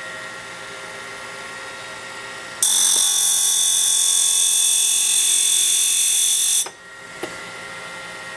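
Grinding wheel of a home-built end mill sharpening setup running steadily with a faint hum. For about four seconds in the middle, a loud, steady, high-pitched hiss switches on and off abruptly.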